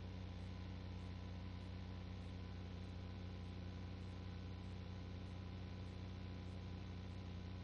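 Steady low hum with hiss, unchanging throughout, with no distinct events.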